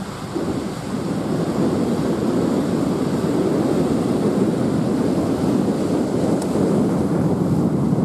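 A cargo ship passing directly below, heard as the rushing water of its bow wave with a low, even rumble. It grows louder over the first two seconds as the ship comes underneath, then holds steady.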